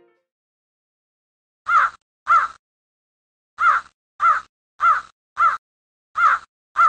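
Crow cawing: eight short caws, a pair, then four in a row, then another pair, with silence between the groups.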